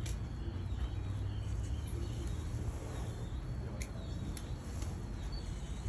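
FV-E991 hydrogen fuel-cell test train running slowly under its own power: a steady low rumble under a constant high-pitched hiss, with two sharp clicks about four seconds in.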